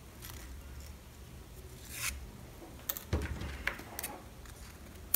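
Faint rustling and soft scraping of satin ribbon and sewing thread handled by hand, with a few short scratchy strokes around two to four seconds in.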